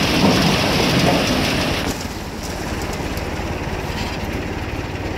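Ears of corn pouring from a corn picker's tipped hopper into a steel trailer, a dense clatter that eases off about two seconds in as the load runs out. A tractor engine runs steadily underneath.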